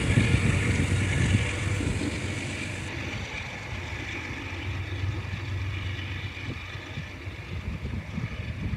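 Amtrak passenger train rolling away along the track: a steady rumble of its wheels on the rails that fades as the rear car recedes into the distance.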